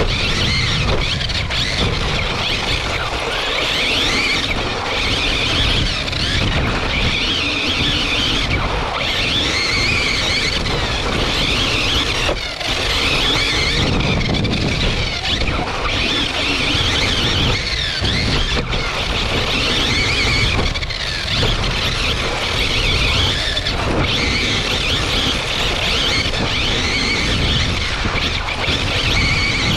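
Agama A319e 1/8th-scale electric buggy's Tekin Redline Gen 3 brushless motor and drivetrain whining, the pitch rising and falling repeatedly with the throttle, over a steady rumble of tyres and chassis on the dirt track, heard from onboard the car.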